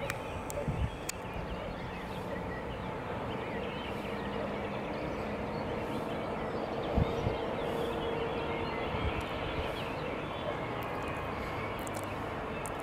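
Steady outdoor background noise over a town below, with faint chirps, a few scattered clicks and a brief low thump about seven seconds in.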